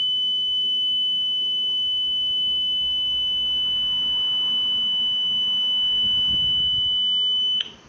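Home security alarm panel sounding one steady, high-pitched tone for an activated medical emergency alarm. The tone cuts off suddenly near the end.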